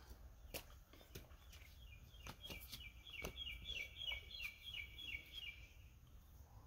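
A bird calling in a quick, even run of short, high chirps, about three a second, for some four seconds starting about two seconds in. Under it are faint scattered clicks and taps of metal parts being handled on a lawnmower engine.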